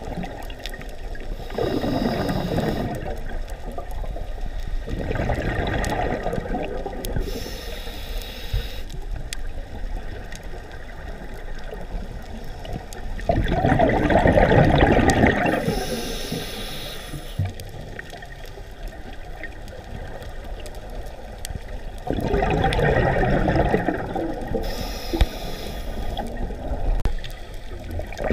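A scuba diver breathing through a regulator underwater: several loud gurgling bursts of exhaled bubbles, some seconds apart, with a short hiss of the inhale in between.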